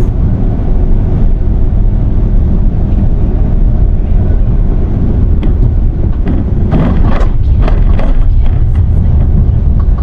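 Steady low rumble of a moving vehicle heard from on board, with a few short sharper sounds about seven to eight seconds in.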